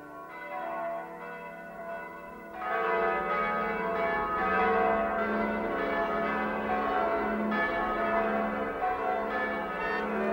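A peal of church bells ringing, many overlapping tones, growing louder about two and a half seconds in.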